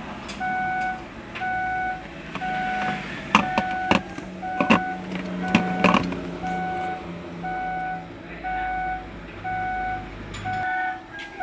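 An electronic warning chime beeping steadily about once a second, each beep about half a second long, with several sharp clicks in the middle.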